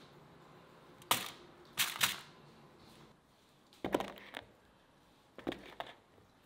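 Whole bell peppers set one after another into a ceramic bowl, making several short knocks against the bowl in separate groups a second or so apart.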